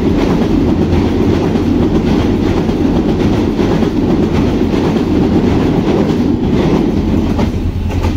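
Pakistan Railways Green Line Express passenger coaches rolling over a steel girder railway bridge. It is a loud, steady rumble with the clickety-clack of wheels passing over rail joints.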